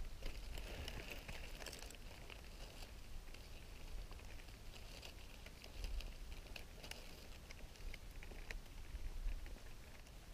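Dry leaf litter and twigs rustling and crackling in many small irregular clicks, with a low rumble underneath.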